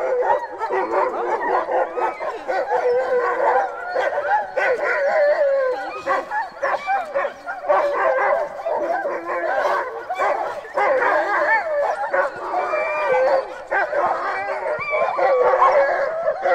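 A pack of sled dogs howling together, many overlapping voices wavering up and down in pitch without a break.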